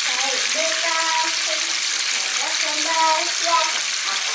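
Catfish frying in hot oil in a pan: a steady, dense sizzle and crackle of oil.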